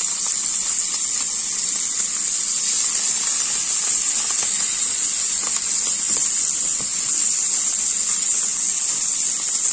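Halloumi cheese sizzling in oil in a frying pan: a steady high hiss, with a few light taps of a fork on the pan.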